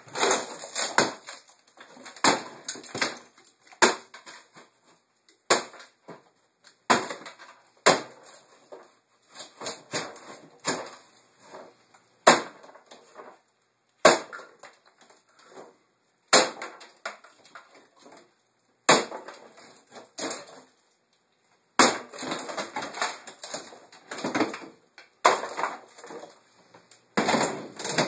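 Wooden kitchen wall cabinets being smashed apart with a long-handled tool: repeated hard blows every second or two, sometimes in quick runs, with wood cracking and panels clattering down.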